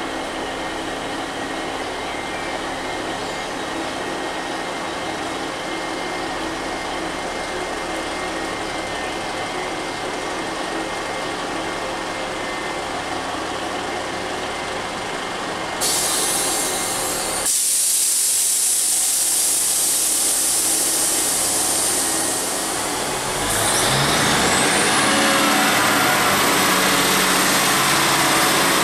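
Class 150 Sprinter diesel multiple unit idling at the platform with a steady hum. About halfway through there is a sudden loud hiss of compressed air. Near the end its engines rev up with a rising whine as it starts to pull away.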